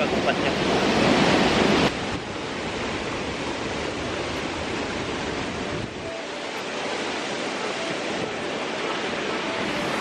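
Steady rushing of a waterfall and rocky stream, loud for about two seconds, then dropping suddenly to a lower, even rush.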